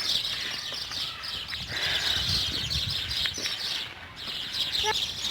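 Small birds chirping in a busy, continuous chorus.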